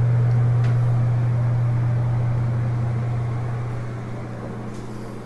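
Bathroom exhaust fan running with a steady low hum, fading away over the last couple of seconds.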